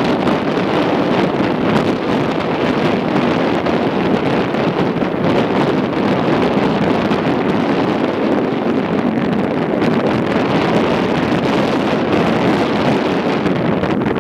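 Steady rushing noise of wind on the microphone over open water, unbroken and even throughout.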